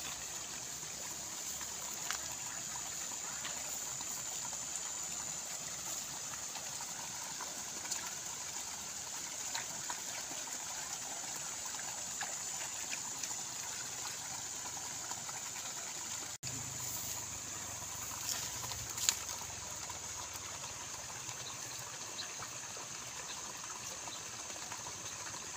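Water trickling and flowing steadily along a shallow muddy rice-paddy ditch, with a few small splashes and clicks from hands and boots in the mud and one sharper click about three-quarters through.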